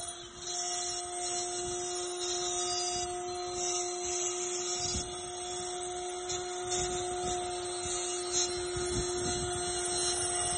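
CNC router spindle running with a steady whine while its small bit engraves a wooden cylinder turned on the rotary axis, a rough scraping cutting noise over it and a few soft low thumps in the second half.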